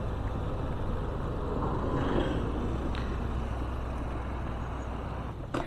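KTM 390 Adventure's single-cylinder engine running steadily while the bike is ridden, with road noise.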